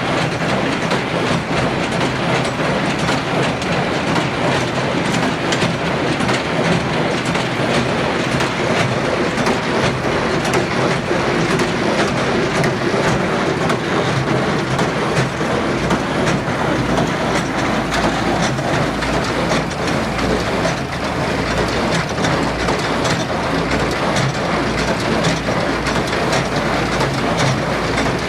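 Bamfords BL30 baler running, its mechanism clattering steadily with a fast stream of clicks and knocks. A low rumble grows stronger about halfway through.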